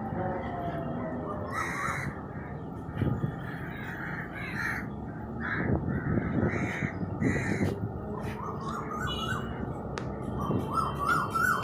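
Birds calling again and again over a steady hiss of rain and wind: a string of separate calls in the first half, then a run of quicker, shorter rising calls near the end.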